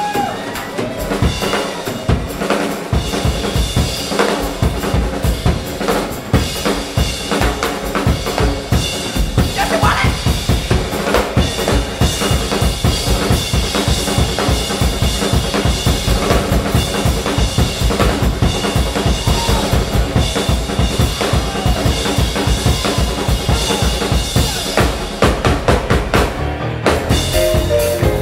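Drum kit solo played live: fast, dense strokes across the kit, with a brief pause near the end.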